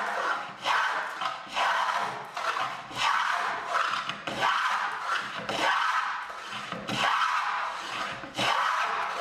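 An 1833 wooden plow plane cutting a groove in a board: about a dozen even, shaving strokes of the iron through the wood, a bit more than one a second.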